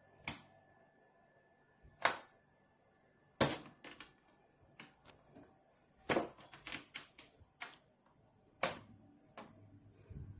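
Irregular sharp clicks and knocks of hard objects being handled: a few single knocks, then a quick cluster of clicks in the middle.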